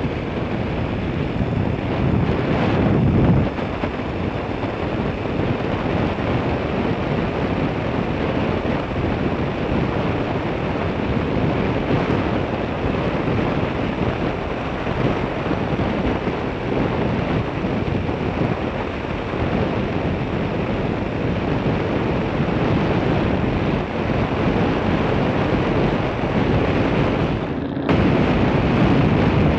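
Steady rushing wind noise buffeting the microphone of a camera moving along a road, with no engine tone audible. It drops out briefly near the end, then resumes slightly louder.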